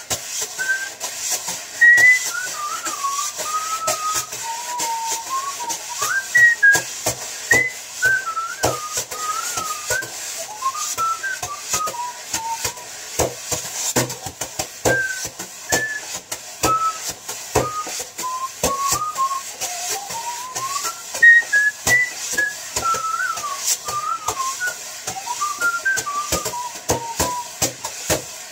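A man whistling a tune while drumming a quick rhythm with kitchen utensils, a wire whisk among them, on a cardboard box.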